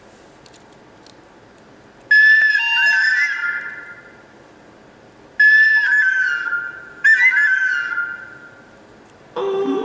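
Three whistle-like tones, each starting suddenly, bending slightly down in pitch and fading over a second or two; a lower tone starts near the end.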